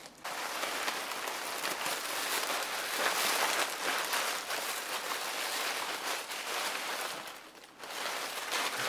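Packaging rustling and crinkling as a shipping box of plant cuttings is unpacked by hand, a steady crackly rustle that pauses briefly near the end.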